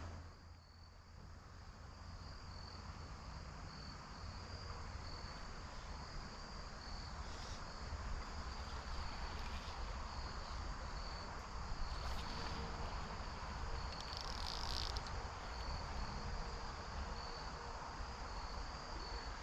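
Crickets chirping steadily, a pulsing high trill, over the even rush of creek water.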